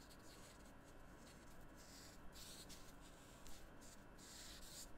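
Faint scratching of a green felt-tip marker being stroked back and forth across paper, colouring in, very quiet.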